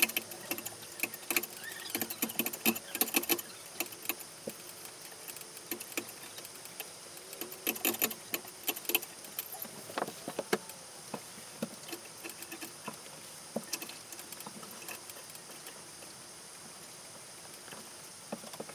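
Irregular clicks, taps and small metallic rattles from a ceiling fan's blades, blade irons and screws being handled as the blades are taken off to be turned over, busiest in two spells and sparser near the end.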